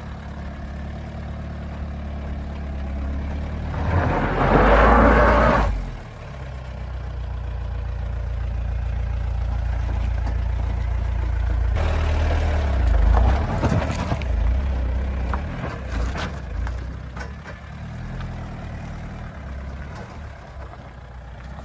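Mahindra Scorpio SUV's diesel engine running at low speed as it crawls over a rough dirt and stone track, a steady low rumble. Two louder, noisier stretches come about four seconds in and again about twelve seconds in.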